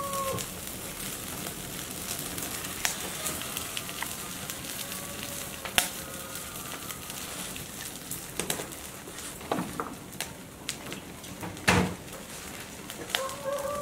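Wood fire crackling and popping on an open hearth, with a few louder pops and knocks as the burning wood is stirred with fire tongs.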